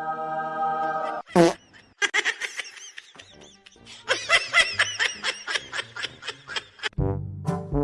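Comedy sound effects edited over a funny-animal clip: a held musical note, a quick pitch slide, then runs of rapid high-pitched giggling laughter. Brass music starts just before the end.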